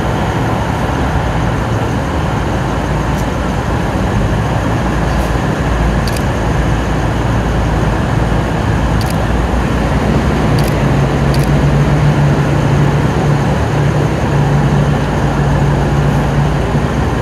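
Diesel engines of V/Line VLocity railcars running as one set pulls out of the platform, with a steady low engine drone that grows stronger about ten seconds in.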